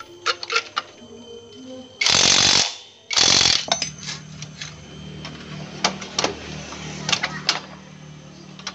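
Cordless impact wrench hammering in two short bursts, about two and three seconds in, loosening bolts on a motorcycle engine. Metal parts clink sharply between and after the bursts.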